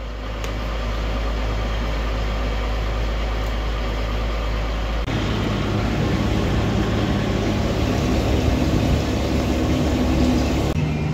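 Tractor engine running steadily, a low, even hum. The sound changes abruptly about five seconds in, where the shot changes.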